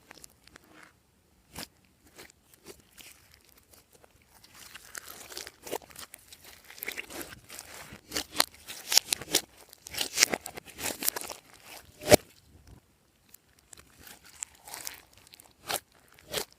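Glossy slime being mixed and squished by hand, crackling and clicking. There are scattered clicks at first, denser crackling from about four seconds in, and one loud snap near the twelve-second mark.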